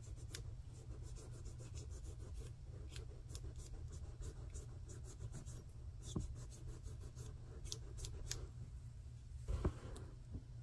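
Faint rubbing and light scratchy ticks of a sponge-tip applicator buffing chrome nail powder into a nail tip, with a brief louder handling knock near the end.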